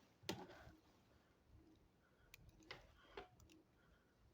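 Near silence with a few faint clicks and taps, typical of light handling of the cable and its tools.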